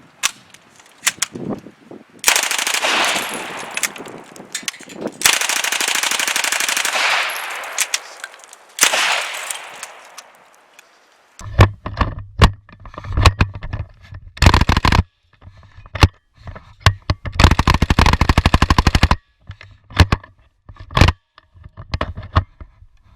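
Bursts of full-auto submachine-gun fire, some lasting two to three seconds, mixed with scattered single shots. Near the middle the sound changes character and a low hum runs under the later shots and bursts, one of them a fast, evenly spaced burst.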